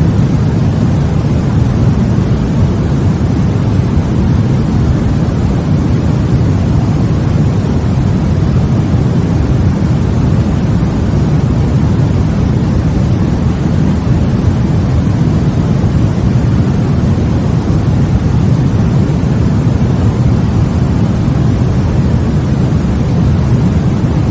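Steady white-noise sleep sound: a loud, even, deep rushing noise, heavier in the bass than a bright hiss, with no changes or breaks.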